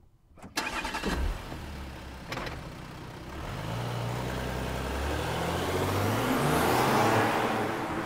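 Audi A5 engine starting with a sudden flare about half a second in, then settling briefly. From the middle on it revs and pulls away, the engine note rising in steps and growing louder to a peak near the end before easing.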